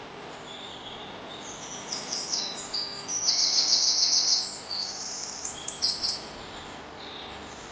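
Songbirds chirping high-pitched calls, with a loud, rapid trill of repeated notes lasting about a second, a little past the middle.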